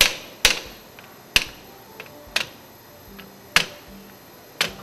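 Rubber mallet striking the steel cable guard of a Grundfos SP submersible pump, seating the guard's tabs fully down under the straps. Six sharp knocks, roughly one a second, each with a short ring.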